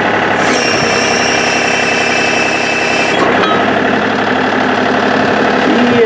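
John Deere tractor engine running steadily with the backhoe attached. A higher whine sits over the engine from about half a second in and stops about three seconds in.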